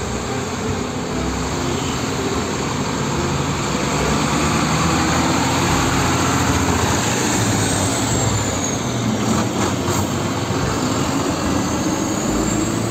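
Diesel engine of a Sinotruk Howo concrete mixer truck running as it drives by on the road, with tyre and traffic noise, a little louder around the middle as it passes close.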